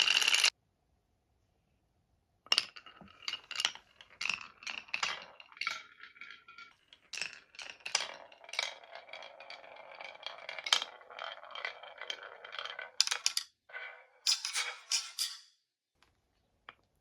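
Small marbles rolling and clacking down a wooden marble run. After a short burst right at the start and a pause of about two seconds, a run of clicks and knocks builds into a steady rolling clatter, then stops abruptly about fifteen seconds in.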